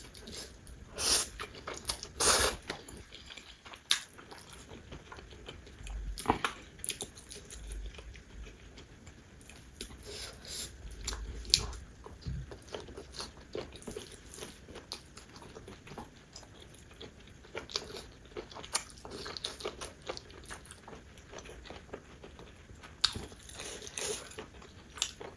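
Close-miked eating sounds: chewing and biting food, with many short wet mouth clicks and a few louder bites.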